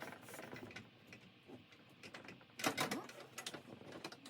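Irregular clicking and rattling of hardware being handled, with a louder clatter a little past the middle.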